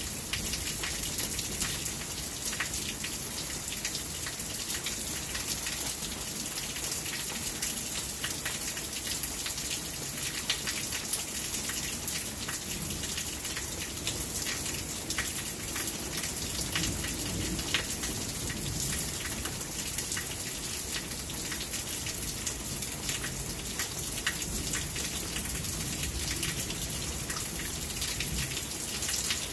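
Steady rain falling, with many close drops ticking on hard surfaces.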